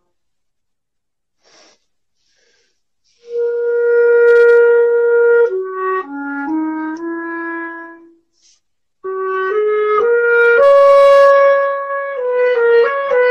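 Solo clarinet playing a slow melody. About three seconds in, it starts on a long held note and steps down through several notes. After a brief breath, a second phrase climbs to another long held note.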